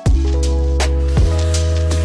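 Background music with a beat: sharp drum hits over a deep sustained bass and held chords.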